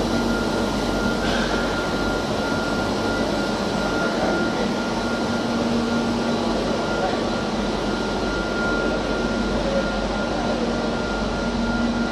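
In-line production printing system, an InfoPrint 4100 continuous-forms laser printer feeding Lasermax paper handlers and an IBIS Smartbinder SB2 booklet maker, running with a steady dense machine noise. A steady low hum and a steady high whine run through it.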